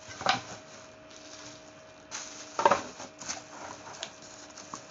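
Plastic packaging rustling and crinkling, with a few sharp knocks and clatters as kitchenware is packed back into a cardboard box; the loudest knock comes just before the three-second mark.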